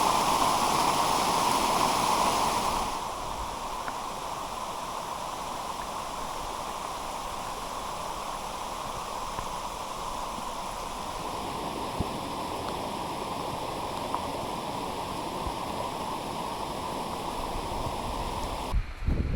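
Monsoon rainwater rushing down stone steps as a stream, louder for about the first three seconds and then settling to a quieter, even rush.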